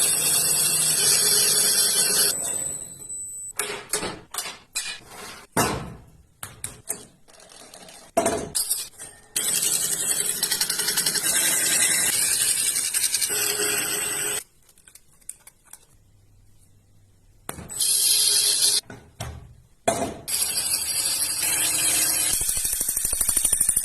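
Woodworking sounds: a power tool running in long spells with a steady high whine, broken by spells of separate knocks and taps, and a near-silent pause a little after halfway.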